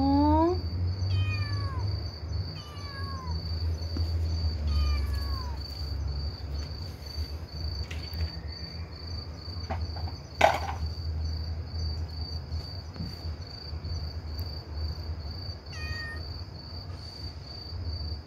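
A motherless kitten meowing: one loud call rising in pitch at the start, then a string of fainter, falling meows over the next few seconds and another faint one later on. A single sharp knock comes about ten seconds in.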